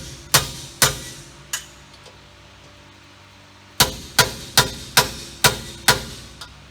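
Hammer blows on steel, driving a seized rear wheel hub bearing assembly out of the axle housing. The strikes come about two a second, each ringing briefly, with a pause of about two seconds after the first three.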